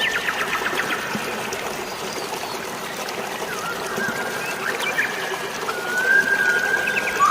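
Steady rush of flowing water, with birds calling over it: a quick run of short chirps at the start, then long, steady whistled notes from about the middle on.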